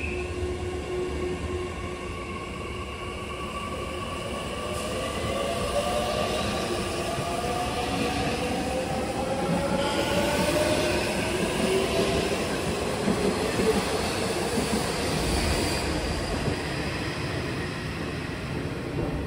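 Nishitetsu 9000 series six-car electric commuter train pulling away from a station: the traction motors' whine climbs steadily in pitch as it speeds up, over the rumble of the cars on the rails. It is loudest about halfway through as the cars pass, then eases off as the train draws away.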